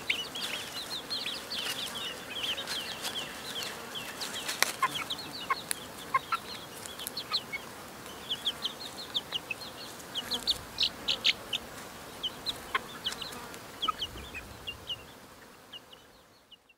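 Young chickens peeping: many short, high, falling chirps, thick at first and thinning out, with a few sharp clicks among them, fading out near the end.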